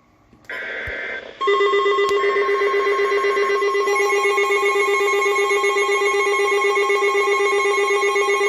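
Emergency alert tones: a short burst of tones about half a second in, then a loud, steady alarm of several held tones with a slight fast pulse. Another tone joins at about four seconds.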